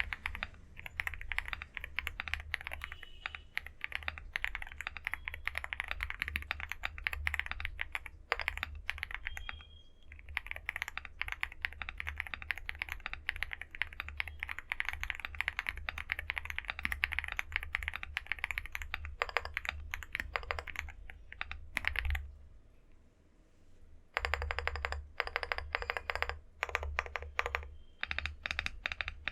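Fast continuous typing on a Leobog Hi75 mechanical keyboard with TTC Superman switches, tempest-tape modded, with lubed stabilizers, giving a dense run of keystroke clicks. About two-thirds of the way in the typing stops for roughly two seconds, then resumes.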